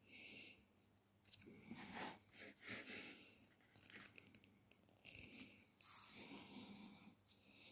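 Faint clicks and short scrapes of pliers working the brass wire on a bassoon reed being bound by hand.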